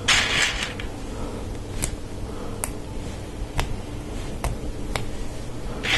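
Plastic LEGO Technic pieces being handled and snapped together, friction pins pressed into a lift arm: a short rustle of parts at the start, then about five sharp, separate clicks.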